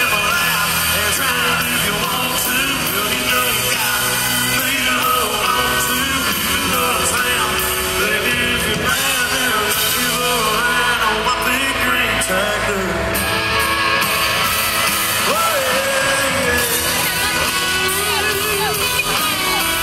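Live country music heard through a phone's microphone in a packed arena: a man singing over guitar and band, with crowd noise mixed in.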